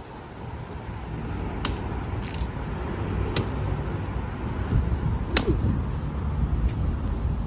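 Strong wind buffeting the microphone with a steady low rumble, with three sharp clicks or knocks about two seconds apart and a couple of fainter ones between them.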